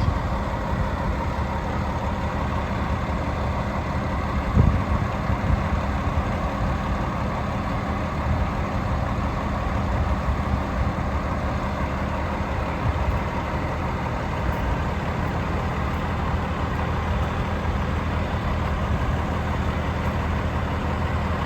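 Heavy diesel engine idling steadily, with a single knock about four and a half seconds in.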